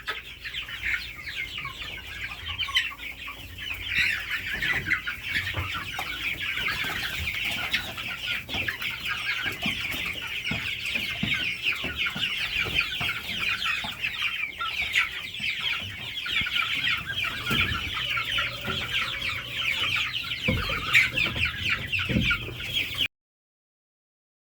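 Mixed flock of chickens clucking and calling, many birds at once in a constant overlapping chatter, with occasional knocks and scuffles among them. It cuts off abruptly near the end.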